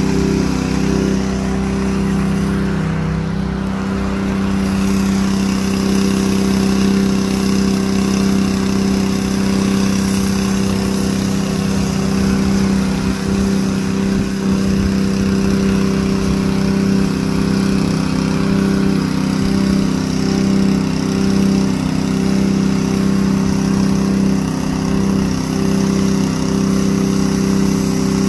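Small gas engine of a sealcoat spray rig running steadily at a constant speed, driving the pump that feeds the spray hose.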